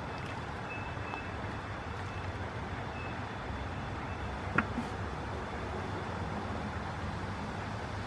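Steady low rumble of outdoor background noise, with a single sharp click or knock about four and a half seconds in.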